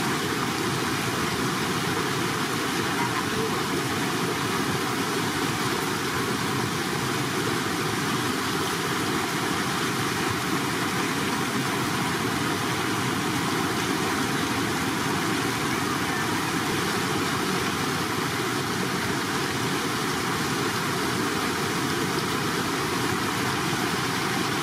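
Steady rushing of fast-flowing shallow floodwater, an even, unbroken sound with no distinct splashes.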